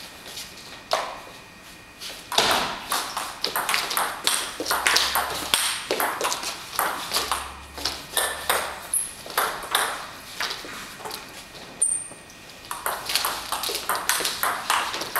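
Table tennis rally: the ball clicking back and forth off the table and the bats in a quick, even rhythm. The clicks stop briefly near the end, then another rally starts.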